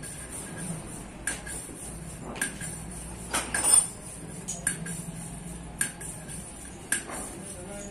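Hand valve lapping on a motorcycle cylinder head: sharp metallic clicks, about one a second with a quick cluster near the middle, as the valve is worked and tapped against its seat.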